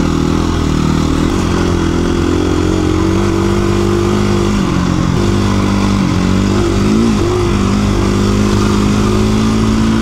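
KTM 350 EXC-F's single-cylinder four-stroke engine running hard under way on a dirt road, its pitch held mostly steady. The note dips briefly and climbs back a few times, about a second in and around five, six and seven seconds in, as the throttle is eased and reopened.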